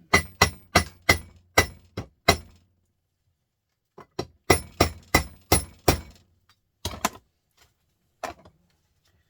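Metal-on-metal hammer blows on a small printer motor being broken apart: a quick run of about seven sharp, ringing strikes at roughly three a second, a pause, another run of about six, then a few single blows.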